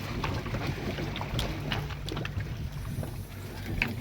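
A fishing boat's engine running steadily, a low hum, with wind on the microphone and scattered light clicks and knocks.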